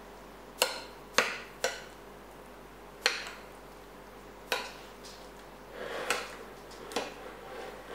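Metal spoon clinking and scraping against a ceramic plate while stirring a soft avocado mash: about seven sharp clinks at irregular intervals.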